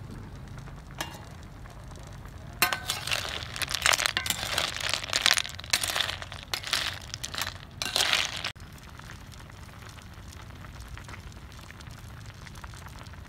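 Field snail shells clattering and clinking against one another and the metal pot as they are stirred with a spatula, from about two and a half seconds in until about eight and a half seconds in. A steady low rumble of the simmering pot runs beneath.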